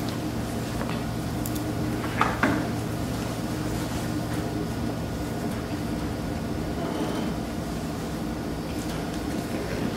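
Steady low hum of room tone, with a short knock and rustle about two seconds in as the puppet and props are handled on the tabletop.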